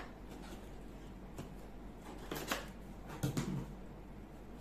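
Cardboard box being handled and opened by hand: two short scraping rustles about two seconds in and again a second later, the second with a dull bump.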